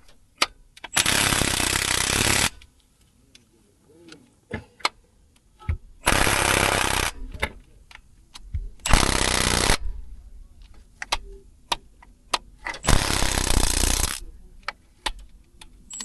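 Impact wrench run in four short bursts of about a second each, driving bolts tight, with tool and metal clinks between the bursts.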